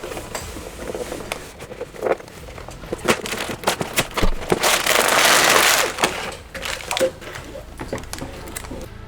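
Cardboard box and plastic parts bags of a Lego Technic set handled as it is unboxed: scattered clicks and crinkling, with a longer rustling rush in the middle.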